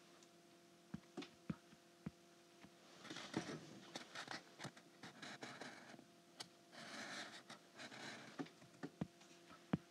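Faint taps and scratchy strokes of a stylus writing digits on an iPad screen, scattered clicks with two short spells of scratching, over a steady low electrical hum.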